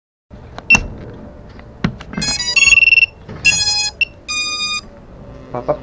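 A short run of electronic beep tones, several separate notes a fraction of a second each, starting about two seconds in and together spelling out an A-flat minor chord. It is preceded by a couple of sharp clicks.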